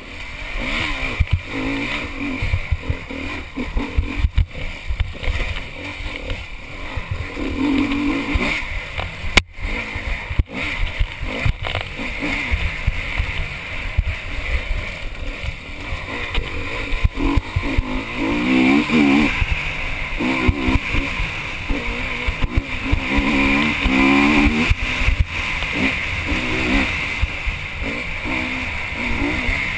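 Honda enduro motorcycle engine heard from the rider's helmet camera, revving up and dropping back again and again as the bike is ridden hard over a rough dirt trail. Wind and bumps on the microphone add constant low rumbling and knocks.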